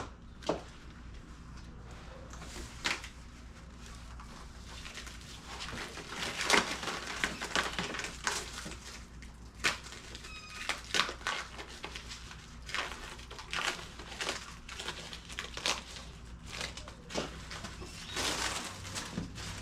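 Cardboard shipping box being cut open and handled: irregular scrapes, crinkles and knocks of cardboard and packing tape.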